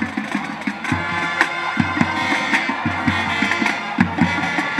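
High school marching band playing, brass horns over bass drums and percussion, with heavy drum strikes repeating through the music.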